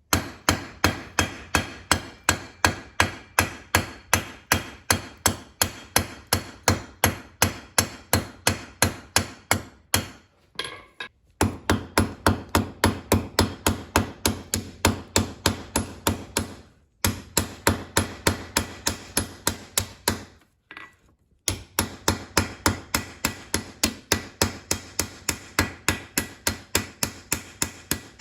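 Hand hammer peening the steel rivet of a pair of slot-jaw tongs cold, metal on metal: a fast, even run of strikes about three a second, pausing briefly three times.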